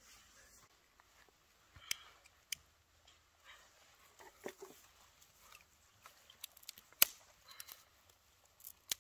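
Scattered snaps and crackles of dry twigs and sticks at a campfire being built and lit. They grow busier in the second half, with one loud, sharp snap about seven seconds in.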